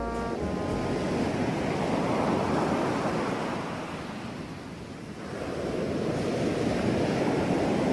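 Ocean surf: a steady rush of waves washing in, easing off about halfway through and building again.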